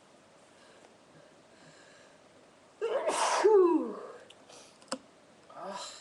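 A person sneezing once, loud, with a voiced cry whose pitch falls as it ends, about three seconds in. A sharp click follows a second later, and a short, softer noise comes near the end.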